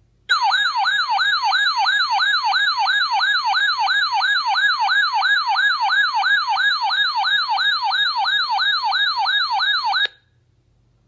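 Emergency weather-alert siren announcing a Special Marine Warning on NOAA Weather Radio: a loud warbling tone that sweeps up and down about three times a second. It stops abruptly about a second before the end.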